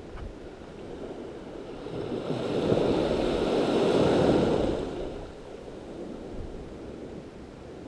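Small waves washing up onto a sandy shore at low tide, one wash swelling louder about two seconds in and fading away a few seconds later.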